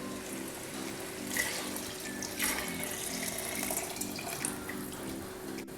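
Coconut milk being poured into a pressure cooker of sautéed rice: a steady liquid pour.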